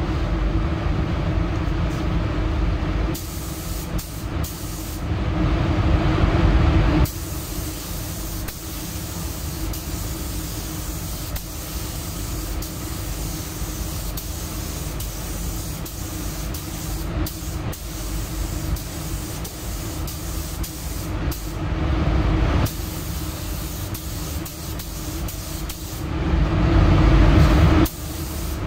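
Gravity-feed paint spray gun hissing as compressed air atomises the paint, triggered in several long passes with short breaks between them, over a steady low hum.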